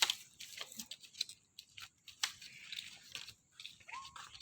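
Irregular rustling and crackling with scattered short clicks, and one brief whistle-like call about four seconds in.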